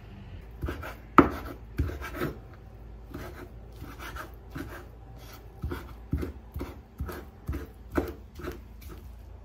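Kitchen knife chopping soaked dried mushrooms on a wooden cutting board: a run of dull knocks, about two a second, the sharpest about a second in.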